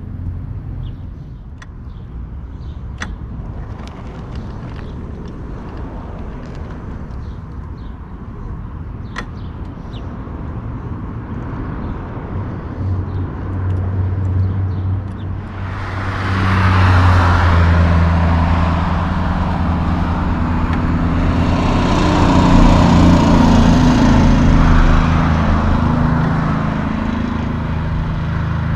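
Heavy diesel engine of a tri-drive logging truck idling with a low rumble. About thirteen seconds in it builds, and from about sixteen seconds it runs much louder under throttle, its pitch shifting up and down, before easing off near the end.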